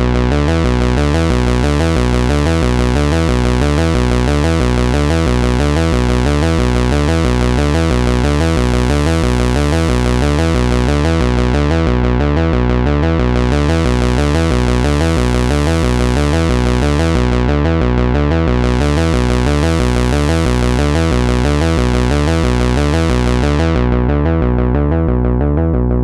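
Roland SH-101 monophonic analog synthesizer playing a repeating bass line from its internal sequencer, with a rough, bright tone. The brightness drops out briefly twice, and the tone turns duller over the last couple of seconds.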